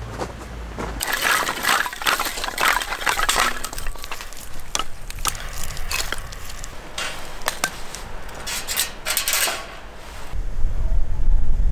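Irregular crackling and crinkling in dense spells, then from about ten seconds in a low rumble of wind buffeting the microphone.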